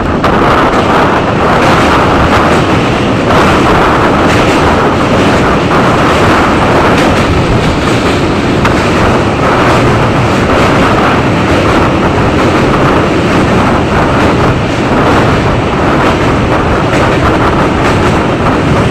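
Indian Railways passenger train running across a steel truss bridge, heard close up from the coach: a loud, steady running noise of the wheels on the rails.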